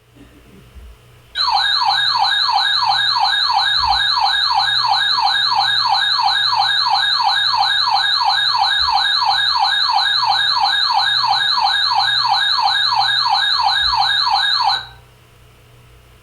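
Loud electronic siren tone in rapid falling sweeps, about three a second. It starts about a second and a half in and cuts off suddenly near the end.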